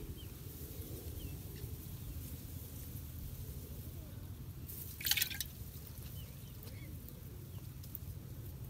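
A short splash of water about five seconds in, as a freshly caught fish is dropped into a pot of water, over a faint steady low rumble.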